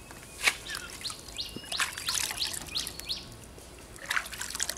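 Small birds chirping in quick, repeated high chirps, over water sloshing in a plastic basin as a wet puppy is washed, with one sharp splash about half a second in.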